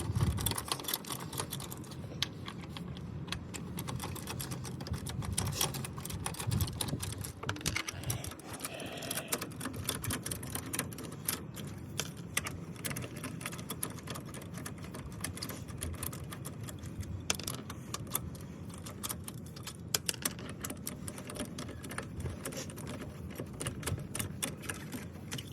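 Lug nuts being worked off a car wheel with a wrench: a long run of rapid metallic clicks.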